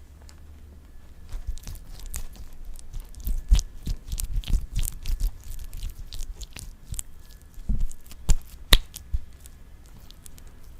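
Someone chewing and biting close up, with irregular crunches and sharp clicks; the loudest clicks come about eight to nine seconds in.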